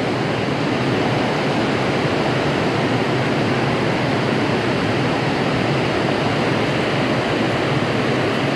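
Steady, loud rushing noise that holds even throughout, with no clear tone or rhythm.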